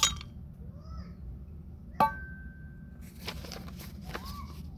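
Ice cubes dropped into a small cauldron: a sharp clink at the start and a second one about two seconds in that rings on for about a second. Soft rustling and clatter follow.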